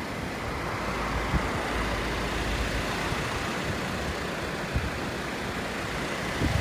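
Road traffic going by: a steady rush of tyres and engines, with a deeper rumble in the first half.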